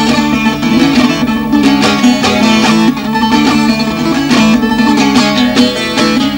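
Solo bağlama (long-necked Turkish saz) playing an instrumental interlude: rapid strummed and plucked notes of a melody over steadily ringing lower strings.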